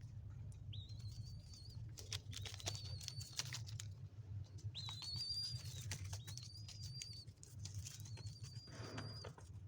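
Baby dove (squab) giving a series of about five high, thin, drawn-out squeaking calls, each about a second long, with soft clicks and rustles between them. A steady low hum runs underneath.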